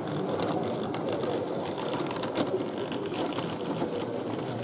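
Small model train running along the layout, its motor and wheels under the steady hubbub of a busy exhibition hall, with a few light clicks.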